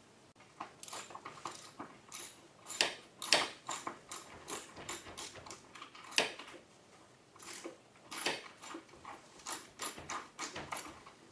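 Socket ratchet clicking in short, uneven runs, mixed with small metal knocks, as the mounting screws of a wall-mounted garage door opener's bracket are driven into the wall.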